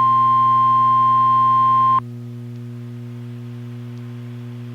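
Weather-radio emergency alert tone: one steady high beep that cuts off abruptly about two seconds in, leaving a steady low hum.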